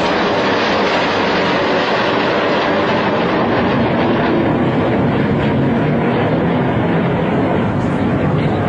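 Jet aircraft engine noise, loud and steady throughout.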